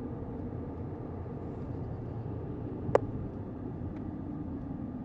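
Steady low rumble of a car, with one sharp click about three seconds in and a fainter click a second later.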